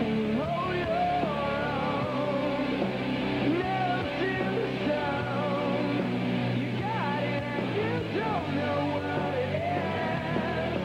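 Rock band playing live: electric guitars, bass and drums, with a singer's voice over them.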